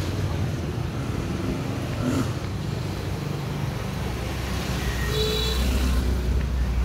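Street traffic noise with a steady low engine rumble from a nearby vehicle, which gets louder about four and a half seconds in. A brief high tone sounds around five seconds in.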